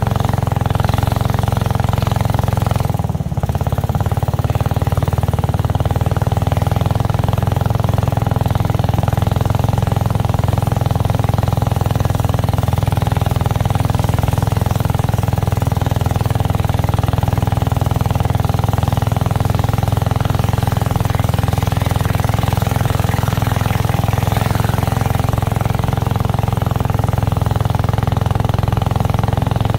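Motorboat engine running steadily at a constant speed, with a low hum, dipping briefly about three seconds in.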